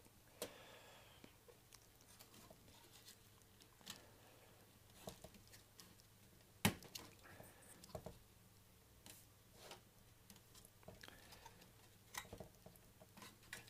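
Faint, scattered clicks and scrapes of a plastic panel meter being worked into a metal front-panel cutout, with one sharper click a little past halfway.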